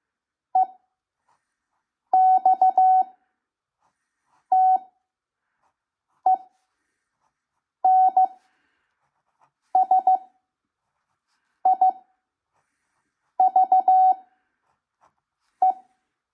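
Morse code (CW) practice recording at 5 words per minute: a single steady beep keyed in dots and dashes, each character sent quickly and followed by a gap of about a second, nine characters in all.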